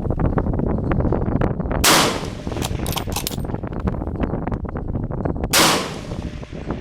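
Two 7.62x51mm bolt-action rifle shots about three and a half seconds apart, with a cluster of small metallic clicks between them. Wind buffets the microphone throughout.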